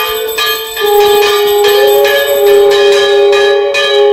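Brass puja hand bell rung rapidly and continuously during the aarti, its strokes ringing together. Under it is a long held note that steps up in pitch partway through and drops back near the end.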